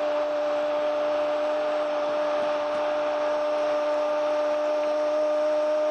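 Football commentator's drawn-out goal call: one long held "gooool" at a steady high pitch. Stadium crowd noise runs underneath.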